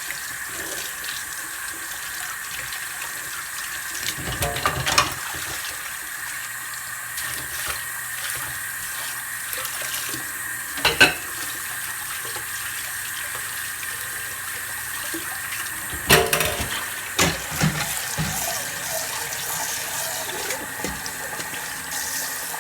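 Tap running steadily into a sink while baking tools are washed by hand, with a few short knocks and clinks of the utensils against the sink.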